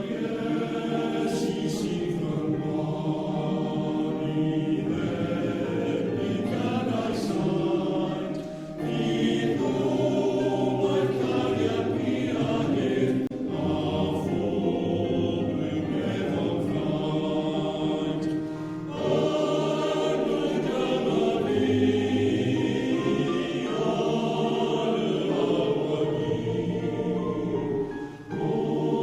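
Male voice choir singing in full harmony, sustained chords in long phrases with brief breaths between them.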